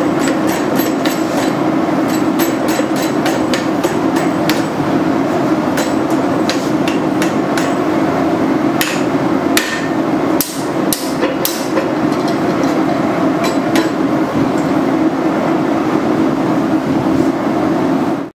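Repeated hand-hammer blows on a steel piece clamped in a bench vise, a few sharp metallic strikes a second at an irregular pace, with the heaviest ones a little past the middle. A steady drone runs underneath.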